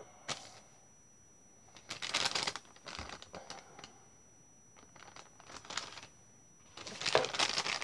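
Crinkling of a seaweed snack packet being handled, in several short bursts, loudest near the end.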